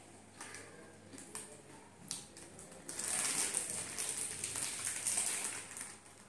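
A plastic potato-chip packet crinkling and rustling as it is handled, loudest and continuous from about halfway through until just before the end. Before that, a few scattered crisp crunches of chips being chewed.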